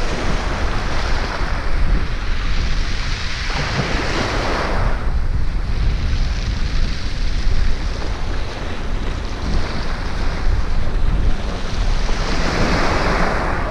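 Waves breaking and washing up the beach, swelling twice, once early and once near the end, under steady wind buffeting the microphone.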